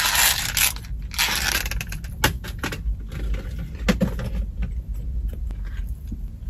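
Fast-food paper and cardboard packaging crinkling and crackling as it is handled, most densely in the first second, then in scattered sharp crackles.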